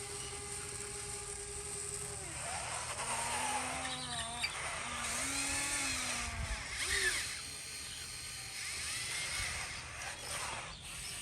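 Small electric motors of radio-controlled construction models whining, repeatedly speeding up and slowing down so the pitch rises and falls in short arcs.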